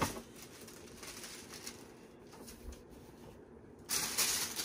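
Faint rustling and handling of a boxed robe's packaging as the box is opened, growing louder about four seconds in.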